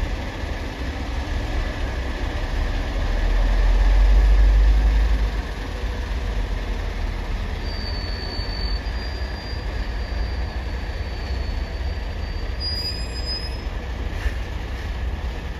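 Heavy vehicles moving in a ferry port: a steady low rumble that swells louder around four seconds in. A thin high squeal starts about eight seconds in and lasts roughly six seconds.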